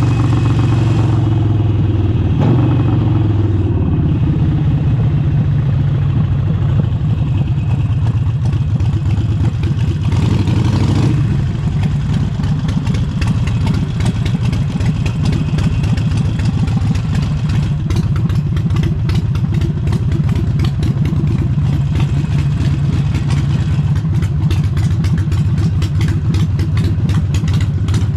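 Harley-Davidson Forty-Eight's air-cooled V-twin running through an aftermarket exhaust, its pitch falling a few seconds in as it slows. About eleven seconds in the engine rises briefly and cuts back, then settles into a steady, slightly quieter, rapid loping beat.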